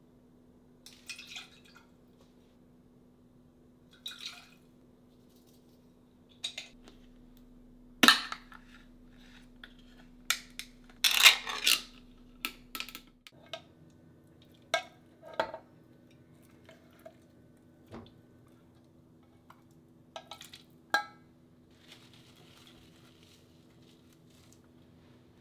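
A pull-tab can of mackerel being cracked open and its lid peeled back with sharp metallic clicks and a tearing clatter, then lighter clinks of a spoon against the can and a stainless steel pot as the mackerel is scooped in. A low steady hum runs underneath.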